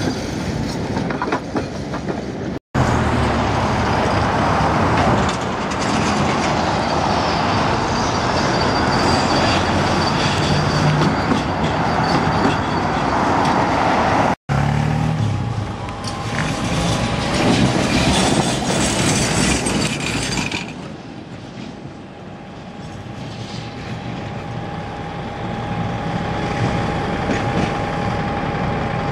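Tram wheels running on rail, with road traffic, over several short takes. Later, a Tatra tram comes along curved track, the sound quieter, with a steady high whine from the tram.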